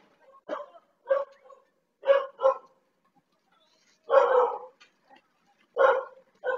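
A dog barking: about seven short, separate barks at irregular intervals, with a slightly longer one about four seconds in.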